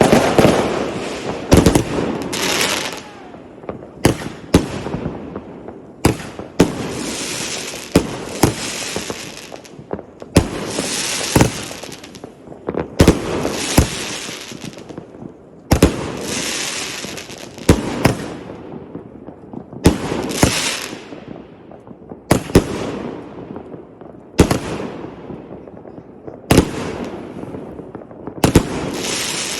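Fireworks going off one after another: a sharp bang every one to two seconds, each followed by a crackling, hissing trail that fades away.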